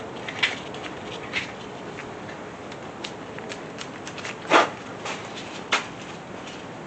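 A few sharp clicks and knocks of tools on metal, the loudest about four and a half seconds in, over a steady background hiss: hand-tool handling while chasing the head-bolt threads in a small-block Chevy 350 block.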